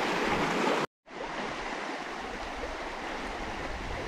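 River water rushing over shallow rapids, broken by a moment of silence about a second in; after it a quieter, steady flow of river water.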